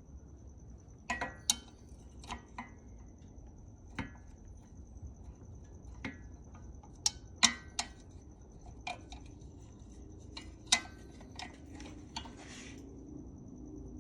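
Small metal parts clinking and tapping against each other in irregular sharp clicks, with two louder clinks in the middle of the stretch.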